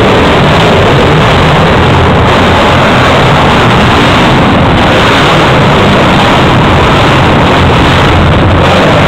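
ATV engines running loud and steady as the quads race through a concrete shed, with the sound overloading the microphone.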